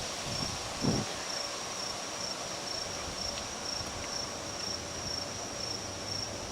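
Insects trilling steadily in a high pitch, with a slight pulse, over the soft hiss of a light breeze.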